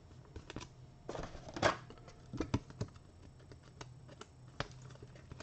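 Trading card and clear plastic card sleeve being handled: soft crinkly rustles and scattered light clicks and taps, the loudest rustle about one and a half seconds in, over a faint low hum.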